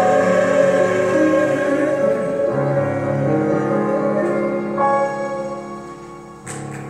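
Closing chords of a church choir anthem with keyboard accompaniment: held chords that change twice and fade away. A short noise comes near the end.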